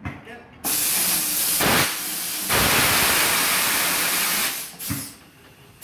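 Compressed air hissing from a tyre-shop air line or tyre machine: one long, loud blast of about four seconds that starts suddenly, then a short puff about five seconds in.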